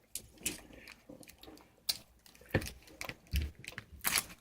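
Candy wrapper being handled and opened: scattered sharp clicks and crinkles, the loudest about two and a half and about four seconds in, with a low thump between them.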